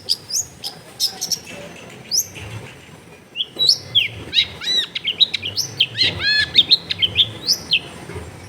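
Long-tailed shrike (cendet) singing: a varied string of short, sharp chirps and quick arched whistles. The song is sparse for the first couple of seconds, then turns into a dense, fast run from about halfway in.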